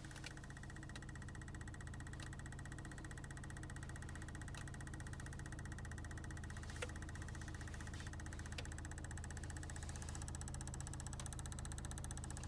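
Car engine idling with a fast, regular knocking that runs with the engine's rhythm, plus a few sharper clicks, the loudest about seven seconds in.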